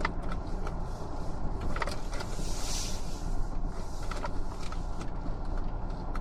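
Ford Ranger four-wheel drive creeping along a rough, muddy bush track: a steady low engine and tyre rumble with frequent small knocks and rattles. There is a brief hiss about two and a half seconds in.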